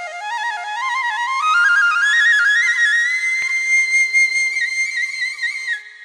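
Background music: a solo flute melody climbs note by note to a high held note, then plays trills before fading out near the end, over a faint steady drone.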